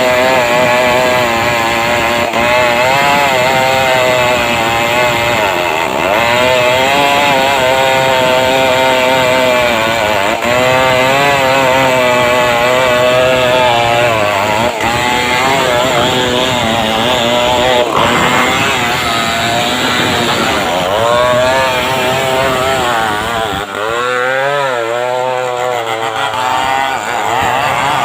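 Stihl 070 two-stroke chainsaw running at high revs while ripping a log lengthwise into planks, its engine pitch wavering as the load in the cut changes. Near the end the pitch swings up and down more widely.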